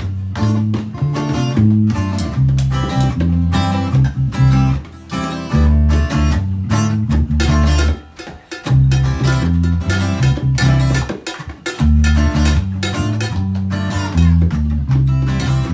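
Instrumental music: guitar strumming a steady rhythm over a bass line, with percussion.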